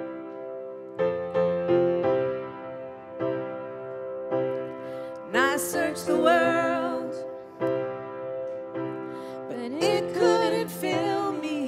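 Live worship band music: piano and keyboard chords with a new chord every second or two, and a singing voice coming in twice for a short phrase, about halfway through and again near the end.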